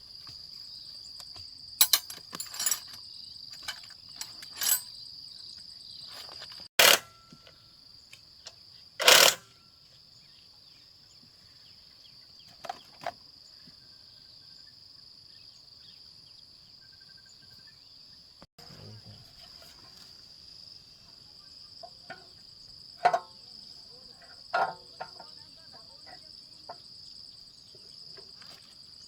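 Steady high-pitched insect chirring, with sharp metallic clinks and knocks of hand tools on engine parts every few seconds: a few around two to five seconds in, two loud knocks about seven and nine seconds in, and more near the end.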